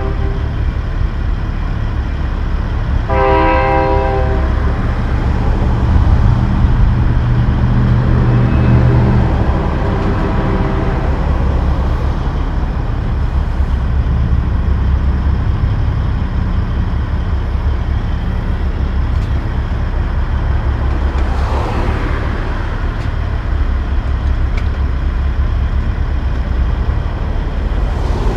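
Diesel truck engine idling with a steady low rumble that swells for a few seconds around the middle. A horn sounds once, about a second and a half long, about three seconds in.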